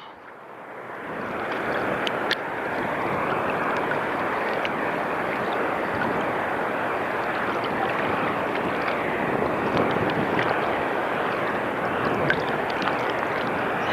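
Steady rushing noise of sea water, rising over the first couple of seconds and then holding even, with a few faint clicks.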